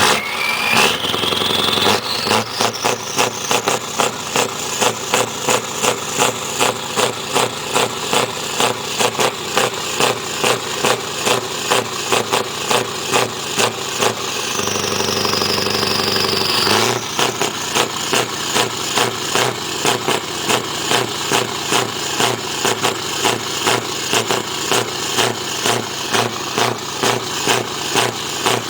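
S. Morcus 143 420 engine running with a regular knocking beat of about one and a half knocks a second, the clatter the title calls 'klappert'. A whine rises sharply in the first couple of seconds, and a little past the middle the knocking briefly gives way to a smoother run with a falling whine before the beat returns.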